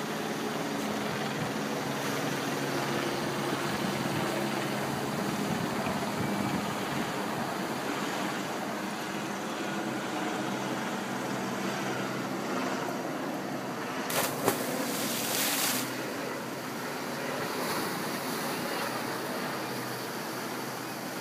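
Surf washing onto a sandy beach, a steady rush of waves with a low engine hum underneath. About two-thirds through there is a short burst of noise with a knock close to the microphone.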